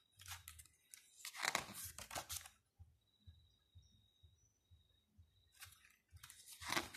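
Faint rustling of the glossy paper pages of a CD album's photobook as they are handled and turned, in short scattered bursts with a quiet pause in the middle.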